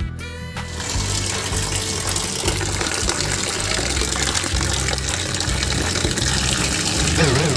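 Loud, steady rushing noise like running or gushing water over background music with a steady bass line. Near the end, a wobbling, warbling tone comes in.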